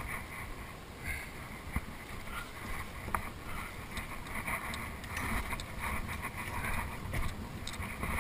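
Wind buffeting the microphone over water sloshing against a small boat's hull, with a couple of sharp clicks.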